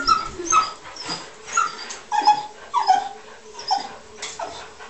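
English cocker spaniels whining and yelping in short, high cries that come about every half second, some of them falling in pitch. The dogs are whining with excitement at a large fish swimming in the bathtub that they cannot reach.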